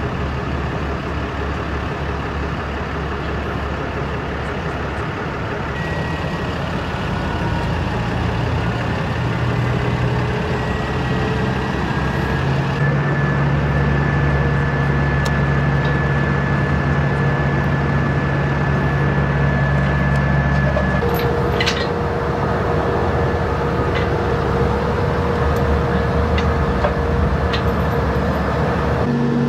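Heavy truck's diesel engine running steadily, a low rumble with a hum that shifts pitch a couple of times.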